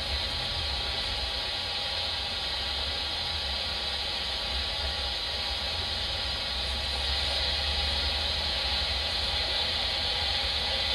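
Steady radio static hiss from an airband receiver between air traffic control transmissions, with a low hum underneath.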